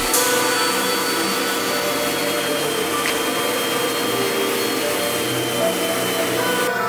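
A steady machine whir with a broad hiss, unbroken, of the kind made by a workshop sander or vacuum. The high part of the hiss drops away near the end.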